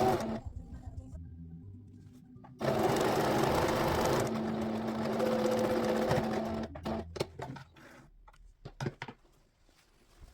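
Domestic sewing machine stitching in two runs: one that stops just after the start, then a longer steady run of about four seconds from about two and a half seconds in. A few short clicks and taps follow near the end.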